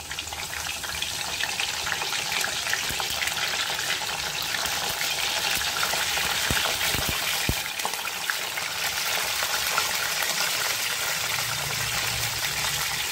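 Whole stuffed small brinjals sizzling and crackling in hot mustard oil in a kadhai as they are laid in one by one. The sizzle builds over the first couple of seconds, then runs steady, with a few light knocks about halfway through.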